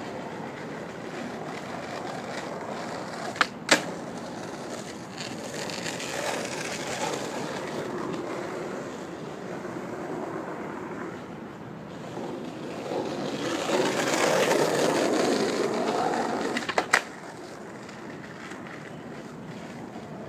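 Skateboard with loose trucks and hard wheels rolling on asphalt, the rolling growing louder for a few seconds near the end and then dropping away. Two ollies, each a sharp tail pop followed a fraction of a second later by the landing clack: one about three and a half seconds in, the other near the end.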